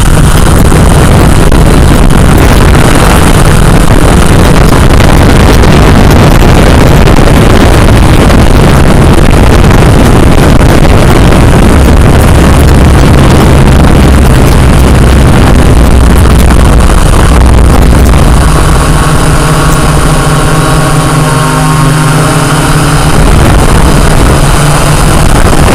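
Quadcopter drone's propellers and motors heard through its onboard camera microphone: a loud, steady buzzing noise. For a few seconds near the end it turns into a clearer pitched motor hum, a little quieter.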